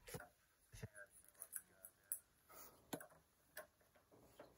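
Faint, scattered clicks and taps of plastic Play-Doh toy pieces and tubs being handled on a table, about half a dozen separate clicks.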